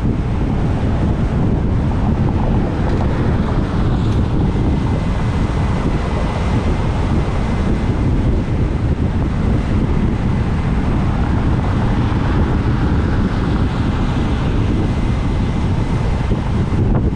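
Steady, loud wind rush buffeting the microphone of a motorcycle riding along a road, with vehicle and road noise underneath.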